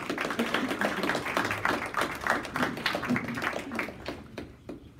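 A small group of people clapping by hand, a few pairs of hands rather than a crowd, dying away about four and a half seconds in.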